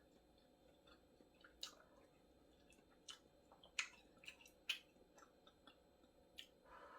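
Faint scattered small clicks and taps, the sharpest two near the middle, with a brief soft rustle at the very end.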